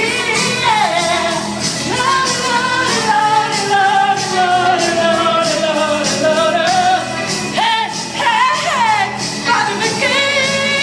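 Woman singing over a karaoke backing track, holding long notes that slide and waver in pitch, with no clear words.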